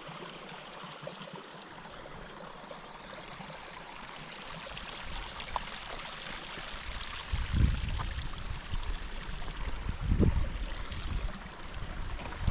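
Steady rush of running water, like a mountain stream. Wind buffets the microphone three times in the second half.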